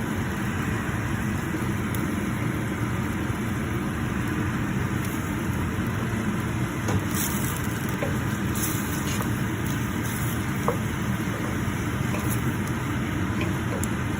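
Shrimp sizzling in a pan of butter, garlic, olive oil and clams, over a steady low hum, with a few faint ticks.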